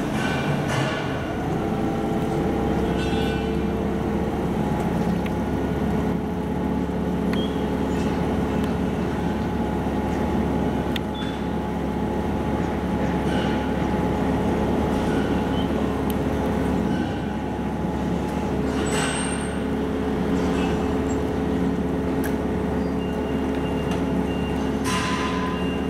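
A steady mechanical drone with a low rumble and an even, held hum.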